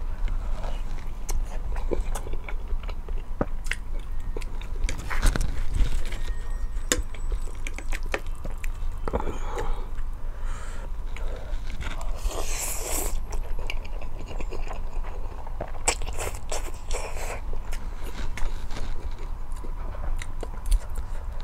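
Close-miked eating of spicy ramen noodles and eggs: continual chewing with wet mouth clicks and smacks, and a louder hissing slurp-like burst about twelve seconds in.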